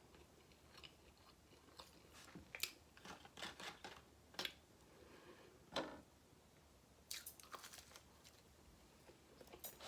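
Faint close-up chewing of a person eating, with scattered sharp mouth clicks at irregular intervals.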